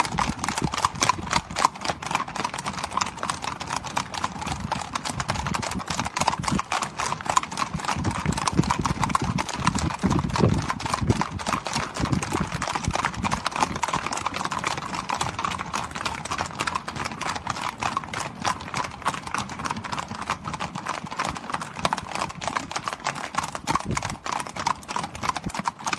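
Herd of Icelandic horses crossing a bridge: a dense, continuous clatter of many hooves striking the deck, overlapping without a break.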